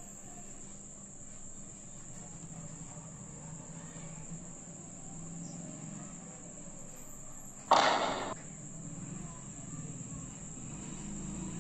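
Steady high-pitched trill of crickets over a low hum, with one short loud rush of noise about eight seconds in.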